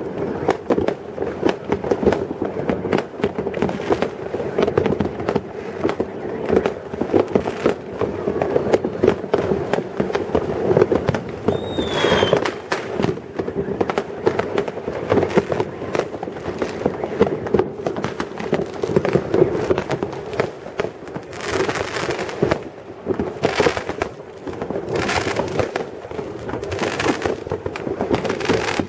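Fireworks and firecrackers going off all around, a dense, continuous crackle of bangs. About twelve seconds in there is a brief falling whistle. Several louder bursts of crackling come near the end.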